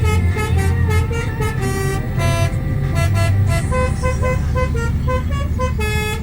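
Telolet horn playing a quick melody of short, changing horn notes, with an engine's low hum underneath.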